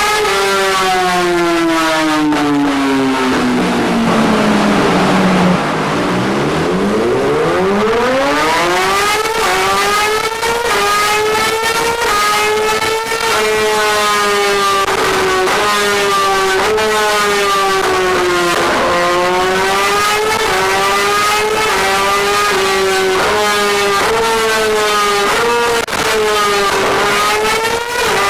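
Yamaha R6 inline-four engine revving very high while ridden hard. Its pitch falls for about five seconds as the bike slows, then climbs steeply. After that it stays near the top of the revs with repeated brief drops at gear changes, dips once more about two-thirds of the way through and climbs again.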